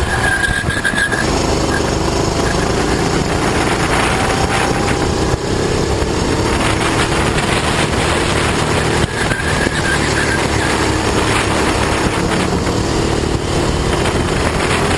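Sodi rental kart's 390cc Honda single-cylinder four-stroke engine running hard through a lap, heard close up onboard. The sound dips briefly twice, about five and nine seconds in.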